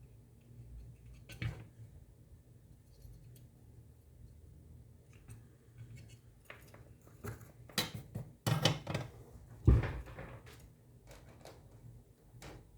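Rummaging through a box of scrap wire offcuts and small parts: scattered clicks and rattles, busiest from about seven to ten seconds in, with one louder knock near the ten-second mark.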